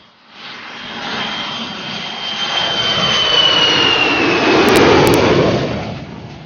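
Loud rushing roar as racing ox carts and their horsemen pass close by a crowd, swelling to a peak about five seconds in. A long high note falls slowly in pitch over the roar.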